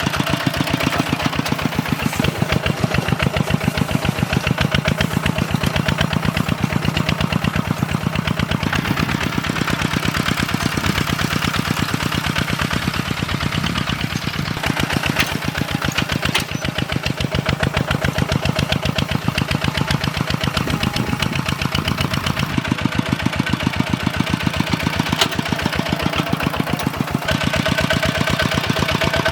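Two-wheel walking tractor engine running steadily while plowing, with rapid, even firing beats.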